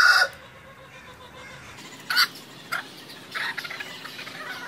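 Rooster crowing, the crow cutting off abruptly just after the start. A few short, much quieter calls follow.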